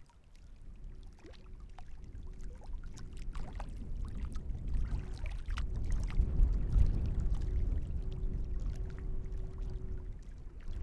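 Gusty wind rumbling on the microphone, swelling over the first few seconds and then rising and falling, with light water lapping at a lake shore and small scattered splashes.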